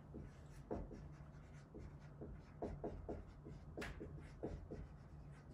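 Dry-erase marker writing on a whiteboard: a run of short, irregular strokes, with one sharper tap a little under four seconds in.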